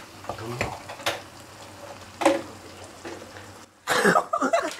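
Kitchen utensils knocking and clinking against pots and pans, three sharp strikes in the first two and a half seconds over a low steady background, with a short burst of a person's voice about four seconds in.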